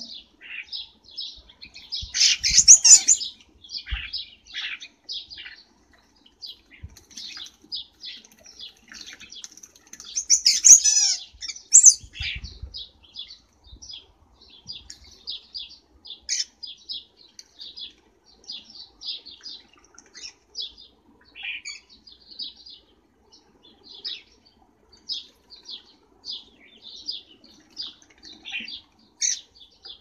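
Common starlings and other garden birds chirping over and over, with two louder bursts of chattering calls about two and ten seconds in. A few soft, low thumps come from birds moving about at a bird bath.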